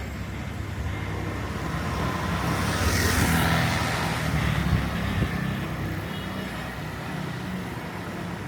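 Street traffic: a motor vehicle passes close by with its engine running, swelling to its loudest about three seconds in and then easing off over a steady low traffic rumble.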